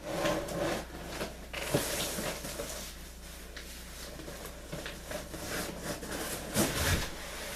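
Cardboard boxes scraping and rustling against each other as an inner box is worked out of a large shipping box, with a few dull knocks, the loudest near the end.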